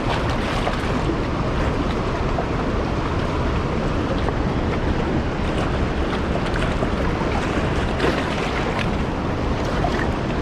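Steady rush of fast-flowing river water and a waterfall, a dense, constant noise with a faint click now and then.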